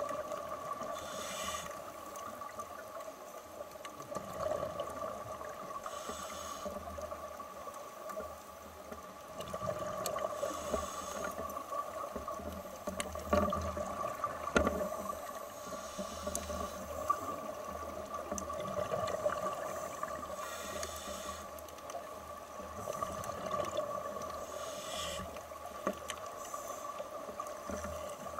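Underwater sound: a steady two-tone hum with the hiss and burble of scuba exhaust bubbles rising from a diver's regulator every four to five seconds.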